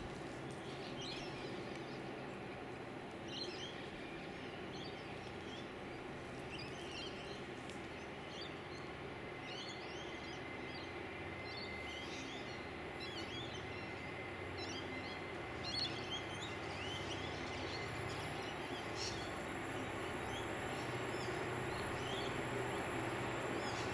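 Small birds chirping in short, scattered calls over a steady low background rumble. The rumble slowly grows louder through the second half, as of a distant train drawing nearer.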